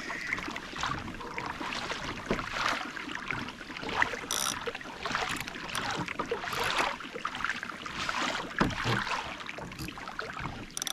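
Water sloshing and splashing against a kayak's hull, with irregular short splashes and knocks.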